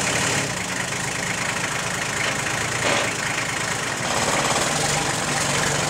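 Diesel engine of a 1984 Toyota FJ60 Land Cruiser diesel conversion running steadily at low revs with no exhaust system fitted, pretty darn quiet.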